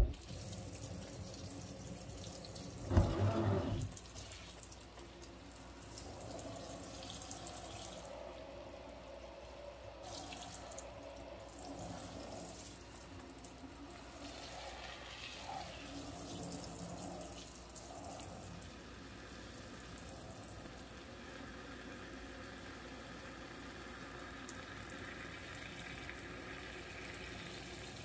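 Tap water running into a stainless steel sink, rinsing soap foam down the drain, with a loud short knock or splash about three seconds in.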